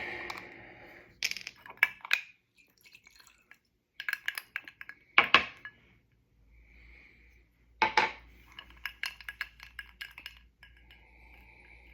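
Glass clinks and knocks from a whiskey bottle and glass being handled and set down. Scattered sharp taps, two louder knocks about five and eight seconds in, and a run of light ticks after the second.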